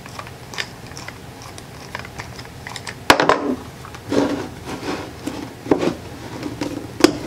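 Nut driver loosening the stainless worm-drive band clamp on a rubber hub coupling: a run of light clicks. From about three seconds in come louder knocks and rubbing as the rubber coupling is handled and pushed onto the hub of a PVC fitting.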